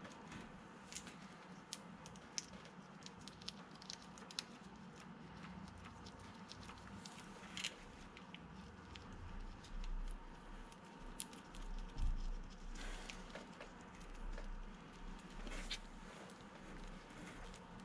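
Faint, scattered small metallic clicks and taps as the camshaft sprocket bolts of a BMW M30 engine are threaded in by hand, with a few soft low bumps of handling from about halfway on.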